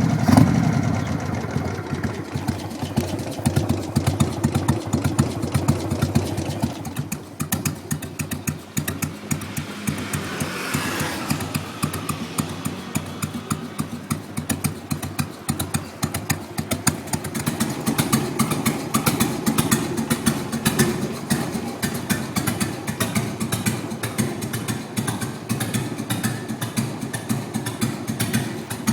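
Carbureted 2001 Harley-Davidson Sportster 883's air-cooled Evolution V-twin idling with a loping, uneven beat, briefly louder right at the start.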